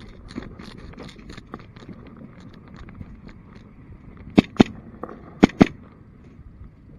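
Airsoft pistol shots: two quick pairs of sharp cracks, the first about four seconds in and the second a second later, over scattered fainter clicks of more distant shots and BB hits.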